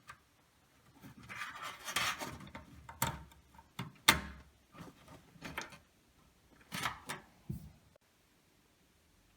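Computer hardware being handled: irregular clicks and knocks with a few brief scrapes, the loudest knock about four seconds in.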